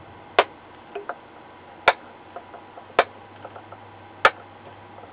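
Diagonal cutters snipping off the excess capacitor leads on a printed circuit board, a sharp click with each cut. There are four loud snips about a second apart, with a few fainter ticks between them.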